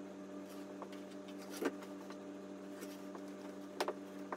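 A steady low hum with a few soft knocks and light rubbing as a clothes iron is pressed over fabric and moved across a wooden table.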